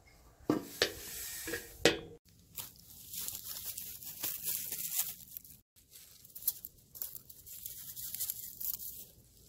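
Hands handling toy animal figurines: a few sharp knocks in the first two seconds, then soft rustling and scraping against the play surface.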